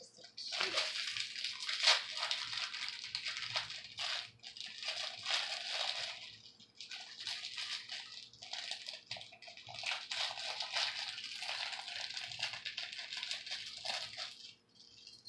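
Small clear plastic jewelry bag crinkling and rustling in the hands as it is worked open, with many small clicks; it stops near the end.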